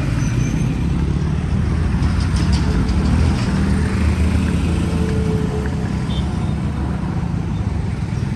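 Steady low rumble of wind on the microphone and road and engine noise while riding a scooter through traffic.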